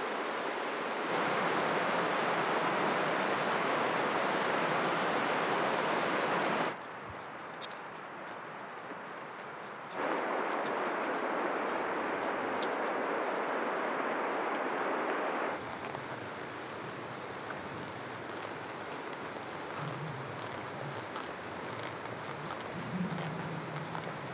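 Outdoor ambience that switches back and forth between a steady, loud rushing noise and quieter stretches of insects chirping in grass. The rushing starts about a second in and breaks off twice, at about a quarter and about two thirds of the way through. The chirping fills the gaps and the end.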